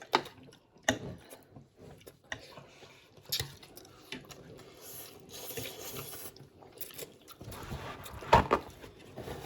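Eating sounds during a noodle meal: chewing and mouth noises, with a few sharp clicks, the loudest near the end.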